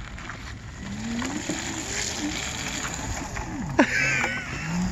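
Daymak Eagle electric e-bike riding up over wet pavement, its motor whine rising and falling with speed. A brief high wavering squeal near the end as it pulls up and stops.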